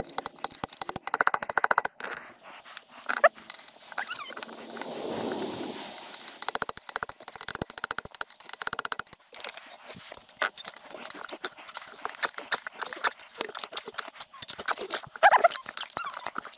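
Rapid clicking and metallic rattling of hand tools at work on a stuck, stripped bolt, with a few short squeaks.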